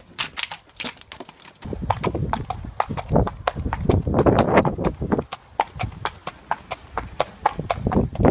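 A horse's hooves clip-clopping at a walk on a road, a steady run of sharp hoof strikes over a rushing background noise.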